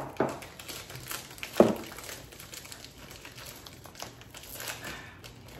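Snack wrapper and paper crinkling and rustling as a packaged wafer is handled and opened, with scattered small crackles and one sharper, louder crackle about a second and a half in.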